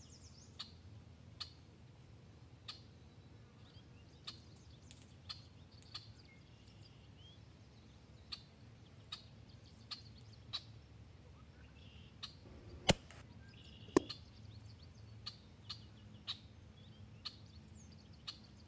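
Small birds chirping over a faint steady outdoor hum, broken well past the middle by two sharp cracks about a second apart: an air rifle shot being fired.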